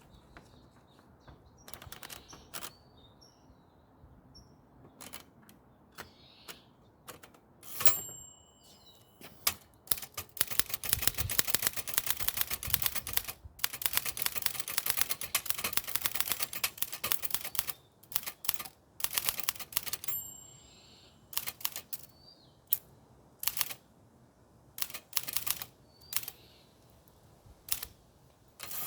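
1909 Continental Standard typewriter being typed on: scattered keystrokes, then a fast, steady run of typing from about ten to eighteen seconds in, with the carriage bell dinging twice.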